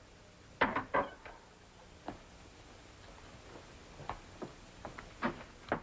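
A series of light clicks and knocks in a quiet room: a quick cluster of sharper ones about half a second to a second in, then single taps scattered through the rest.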